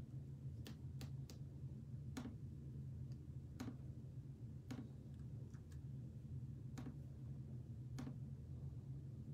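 A steady low hum with about eight sharp clicks at irregular intervals, a few spaced closely near the start.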